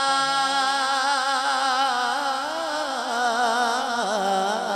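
A male naat reciter's voice singing into a microphone, drawing out one long, wavering melismatic note that drops lower about four seconds in.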